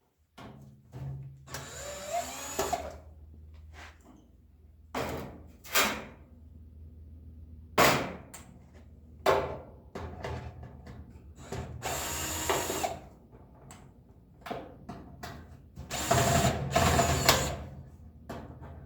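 Power drill-driver backing Phillips screws out of a toaster oven's sheet-metal shell, running in three short bursts. Clicks and small metal knocks come between the bursts.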